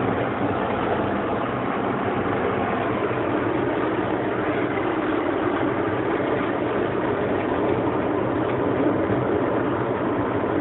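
Hyundai i10 heard from inside the cabin while driving at road speed: steady engine hum mixed with tyre and road noise.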